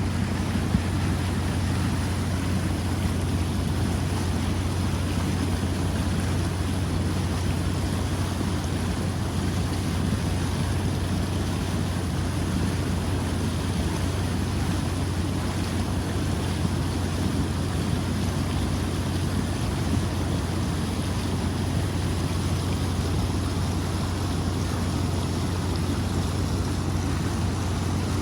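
Flash-flood water rushing steadily down a creek, a constant loud roar with a deep rumble underneath.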